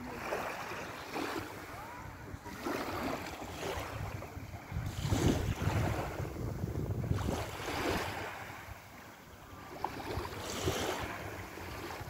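Small sea waves lapping and washing onto a sandy shore, swelling every second or two, with wind buffeting the microphone, heaviest about halfway through.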